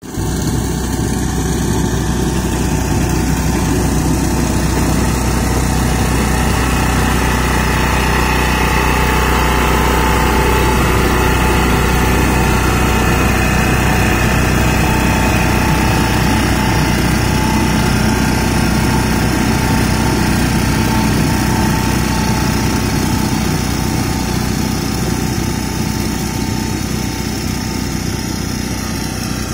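Greaves engine of a walk-behind reaper running steadily under load as the cutter bar works through a standing crop, growing a little fainter near the end.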